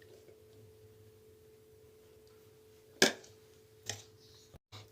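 A faint steady hum on one tone, broken about three seconds in by two sharp knocks about a second apart, the first the louder.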